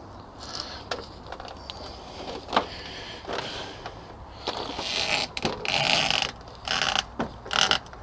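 Manual motorcycle tyre changer at work: scattered metallic clicks and knocks as the steel bar is set on the centre post, then from about halfway a run of rough scraping bursts as the bar levers the tyre bead off the rim.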